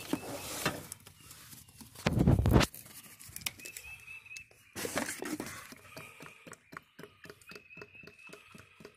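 Handling noise from a plastic quart bottle of CVT transmission fluid being moved about close to the microphone: a loud deep bump about two seconds in, then a long run of small clicks and rustles.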